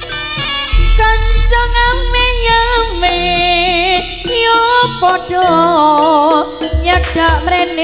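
Live jaranan (kuda lumping) music played loud through a sound system: a wavering lead melody with vibrato over heavy drumming and bass that comes in about a second in. A few sharp cracks sound about seven seconds in.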